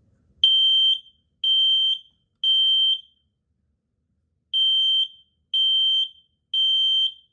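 Kidde P3010L smoke alarm sounding on test: a loud, high, steady beep repeated in the temporal-three evacuation pattern, two groups of three half-second beeps with a pause of about a second and a half between the groups.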